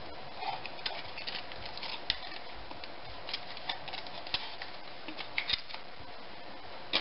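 Crumpled aluminium foil crinkling and crackling as it is peeled off a dry, styrofoam-like piece of freeze-dried shampoo, in scattered small sharp clicks.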